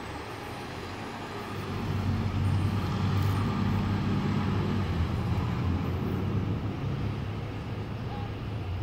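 Fire department ladder truck's diesel engine pulling away, a low steady drone that grows louder about two seconds in as it accelerates.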